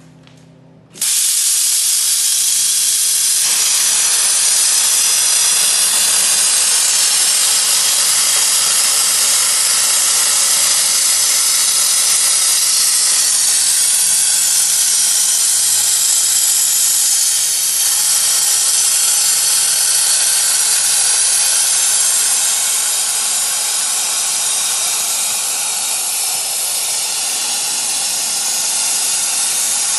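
Plasma torch of a CNC plasma cutter cutting a metal pipe held in a rotary chuck: a loud, steady hiss that starts suddenly about a second in as the arc strikes.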